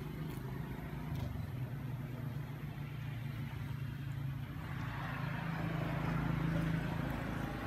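A steady low engine hum, swelling for a few seconds in the second half.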